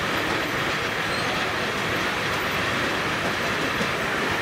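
Steam-powered sawmill machinery running steadily, a dense even mechanical noise that does not change.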